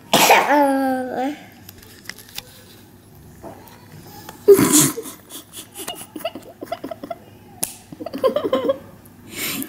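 A baby's wordless vocalizing: a drawn-out babbling sound that wavers in pitch at the start, a loud short shout about four and a half seconds in, then smaller babbling noises. Toward the end, her hands grab and rub the camera.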